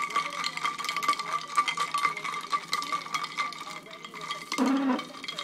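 Ice cubes clinking against the inside of a glass mason jar as a cocktail is stirred with a drinking straw: rapid, irregular clinks that thin out about four seconds in.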